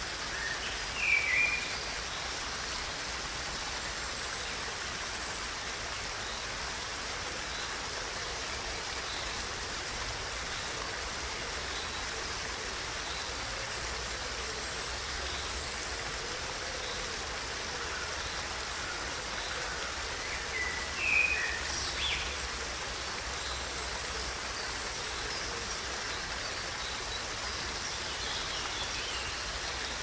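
Water splashing steadily over a small rocky cascade in a stream. Short bird chirps come about a second in and again about two-thirds of the way through.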